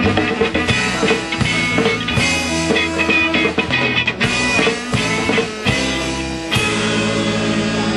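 Live rock band playing: guitars over a drum kit. The sound is dense and loud, thinning briefly about six seconds in.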